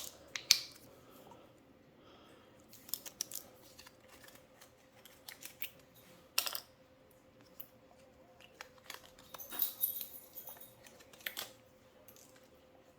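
Scattered light clicks and taps from a lemon juice bottle and bowl being handled while lemon juice goes into the brine, over a faint steady hum.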